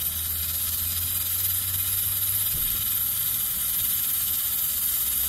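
Aluminium stovetop pressure cooker hissing steadily as steam escapes past its weighted valve, the sign that it is up to pressure and cooking, over a steady low hum.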